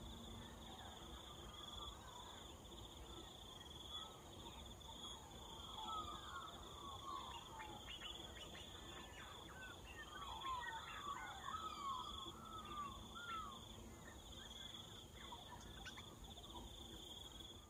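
Insect trilling in a steady high pulse that pauses briefly now and then. From about six seconds in, birds join with a spell of quick chirps sliding up and down in pitch, which dies away a little after the thirteen-second mark.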